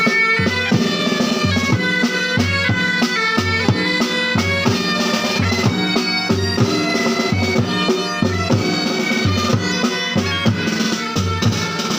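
Bagpipes and drums playing together: a pipe band, the pipes holding a steady drone under the melody, with regular drum beats.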